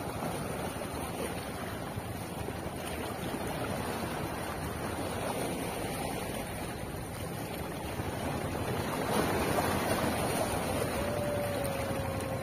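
Small sea waves washing and lapping around a rock at the water's edge, with wind buffeting the microphone. A faint short tone sounds near the end.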